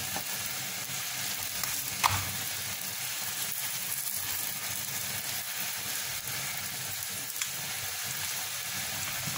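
Layered Moroccan flatbreads (rghaif) sizzling steadily in oil in a cast-iron pan, with a single short tap about two seconds in.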